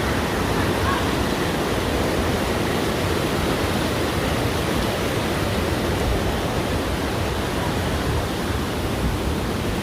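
Waterfall rushing steadily: a loud, even wash of falling water with no breaks.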